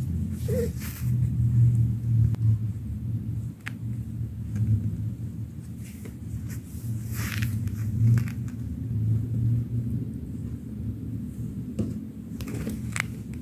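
A low, steady rumble that swells and fades, with a few short, light rustles and scratches as kittens move about on a quilted disposable pad.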